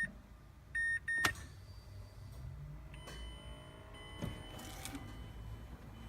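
A car's electronic warning chime beeps once, followed at once by a sharp click, then a faint electric whine with gliding tones as the car's electrics come on before the engine is started.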